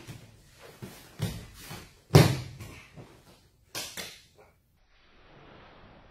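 Grapplers in cotton gis scuffling and thudding on foam mats, with a run of knocks and rustles and one loud thump about two seconds in as a body lands. From about five seconds in there is only a faint steady hiss.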